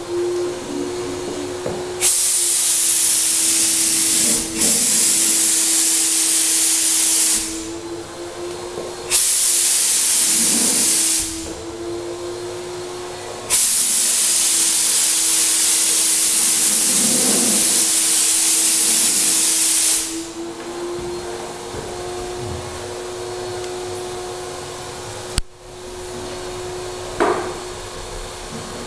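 Graco 9.5 HVLP turbine running with a steady whine, while the spray gun hisses loudly in three long passes of about five, two and six seconds as it sprays paint. A short knock comes near the end.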